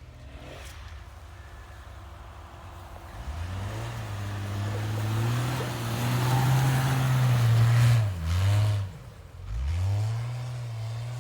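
Car engine revving up about three seconds in and held high, over a hiss of tyres working through deep snow. The revs dip near eight seconds in, fall away about a second later, then climb again and hold.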